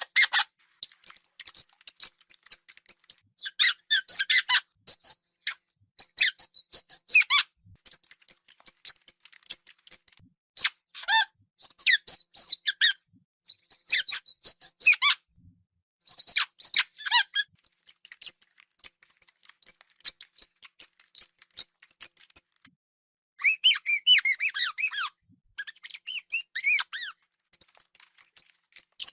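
Hamster squeaking: a long series of short, high-pitched squeaks and chirps in quick clusters, with brief pauses between the clusters.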